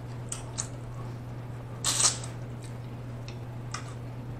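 Cooked shrimp being peeled by hand, its sauce-coated shell giving a few short wet clicks and crackles, the loudest about two seconds in, over a steady low hum.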